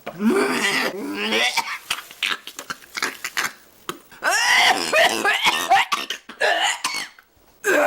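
A woman coughing and gagging in strained fits: a drawn-out strained cry, a run of short coughs, then loud strained cries from about halfway, a reaction to a mouthful of cilantro.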